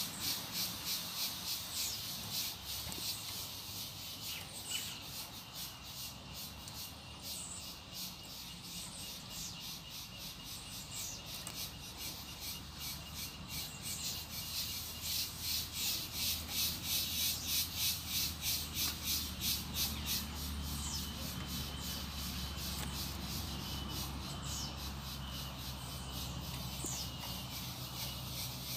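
Insects shrilling in a fast, even pulse, with a few short high-pitched bird calls over it and a low rumble underneath.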